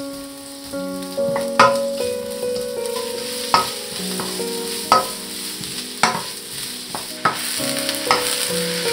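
Julienned carrots, onion and sliced shiitake mushrooms sizzling in oil in a nonstick wok as a wooden spatula stirs them, with sharp knocks of the spatula against the pan every second or so. The sizzle grows louder over the first couple of seconds.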